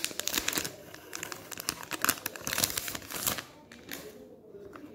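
Clear plastic wrapping crinkling and tearing as it is peeled off a plastic watercolour paint palette, with dense sharp crackles that die down about three and a half seconds in.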